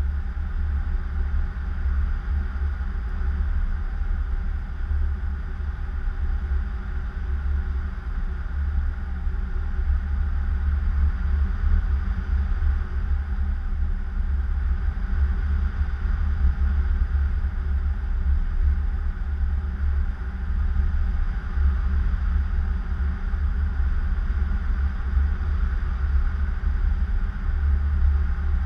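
Wind rushing over an action camera's microphone during paraglider flight: a steady low rumble.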